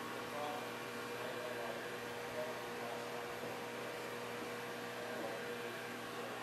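Steady background hum with a constant low tone and a faint hiss underneath.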